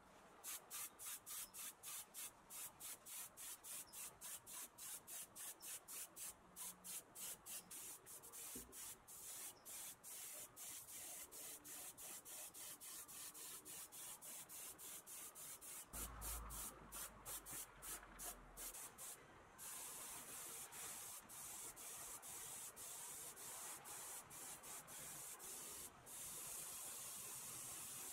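Compressed-air gravity-feed touch-up spray gun hissing as it sprays paint, first in quick short pulls of the trigger, about three a second, then from about twenty seconds in in longer, steady passes.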